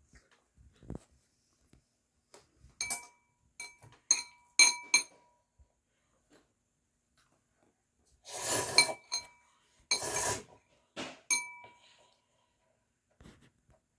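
Utensils clinking against a dish: a string of sharp clinks that ring briefly, then two longer clattering scrapes about eight and ten seconds in, followed by a couple more clinks.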